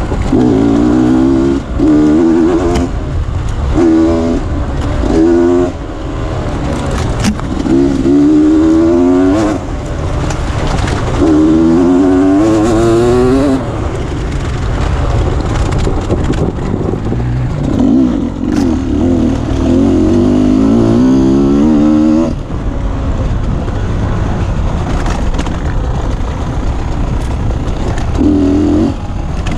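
Beta 250 RR enduro motorcycle engine revving hard again and again, its pitch climbing in short runs then dropping as the throttle is rolled off and gears change while it is ridden along a rough trail.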